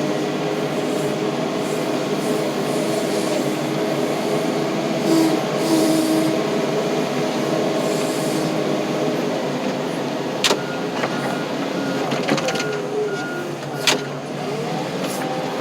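Tractor engine running steadily under load as it pushes a fallen tree, its speed wavering slightly late on. There are two sharp knocks, about ten and fourteen seconds in.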